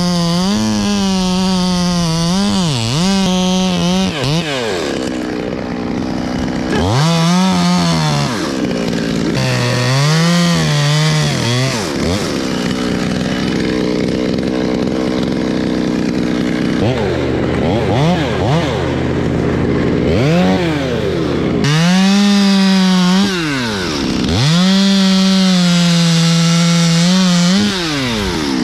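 Two-stroke chainsaw running at full throttle in several bursts, dropping back toward idle and revving up again between them, with a stretch of lower revs and idling in the middle.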